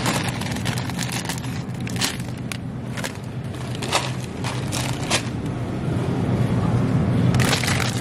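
Steady low hum of a supermarket freezer aisle, with scattered crackles and clicks of frozen-vegetable plastic bags being handled at the freezer case.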